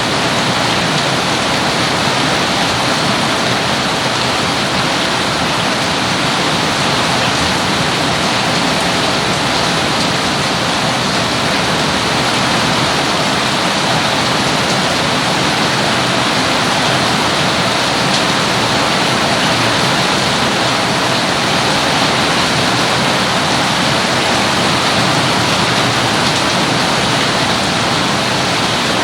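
Rain falling steadily: a loud, even hiss that does not change.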